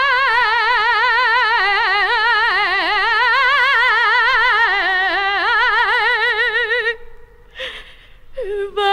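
A female copla singer holds the song's final note for about seven seconds with a wide, fast vibrato, the pitch sinking and rising again before she stops. Near the end a new held note begins.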